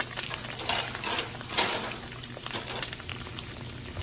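Two eggs frying in a nonstick pan in butter-flavoured cooking spray, sizzling with irregular crackles and pops. The loudest pop comes about a second and a half in.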